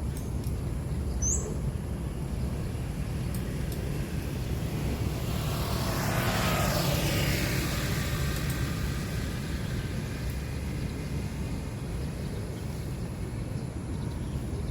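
A vehicle passes by, swelling and then fading between about five and nine seconds in, its pitch falling as it goes, over a steady low rumble. A bird chirps once about a second in.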